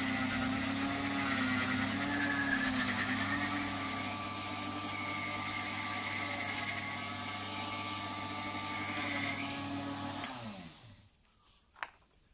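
Dremel-type rotary tool on a flexible shaft running at high speed, its sanding drum shaping a wooden knife handle. About ten seconds in it is switched off and winds down, falling in pitch, and a faint click follows near the end.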